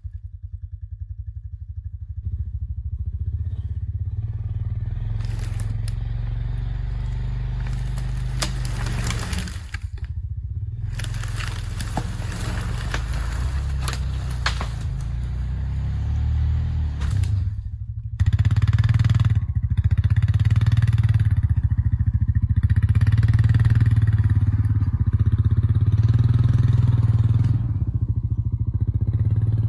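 Small gasoline engine running with an uneven throb, getting louder and staying up about eighteen seconds in.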